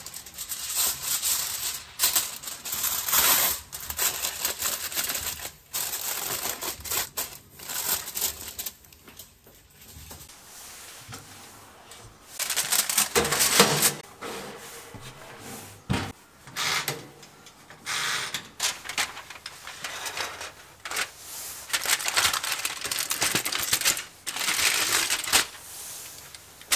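Aluminium foil crinkling and rustling in repeated bursts as a sheet is torn from the roll and pressed down over a disposable foil baking tray. About ten seconds in there is a short lull, then more loud crinkling and handling bursts.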